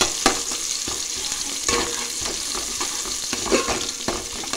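Sliced onions and whole spices sizzling in hot oil in a metal pot, with a steady hiss. A spoon scrapes and knocks against the pot a few times as they are stirred.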